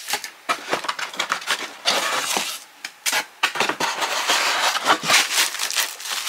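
Packaging being handled while a monitor is unboxed: molded pulp trays scraping and knocking, plastic bags and a foam wrap sheet rustling and crinkling in irregular bursts.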